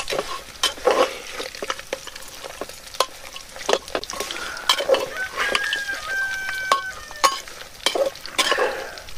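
A metal spoon stirring and scraping food frying in oil in a clay pot, with irregular scrapes and knocks against the pot over a light sizzle.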